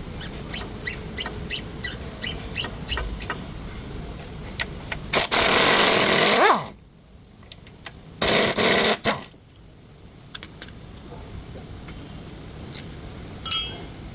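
A run of sharp ticks, about three a second, then two loud bursts from a power tool, the first winding down with a falling whine, while a stabilizer link is being replaced. A short squeak comes near the end.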